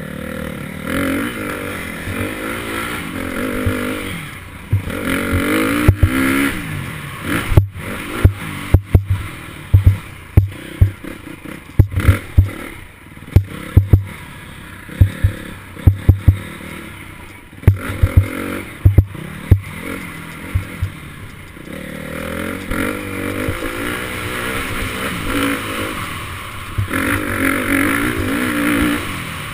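Dirt bike engine running on the trail, its pitch rising and falling as the throttle opens and closes, heard from a camera on the bike. Through the middle stretch come many loud, sharp knocks and rattles as the bike rides over rough ground.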